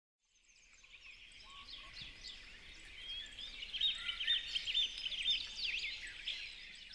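Many small birds chirping and twittering together, fading in over the first seconds and fading out near the end.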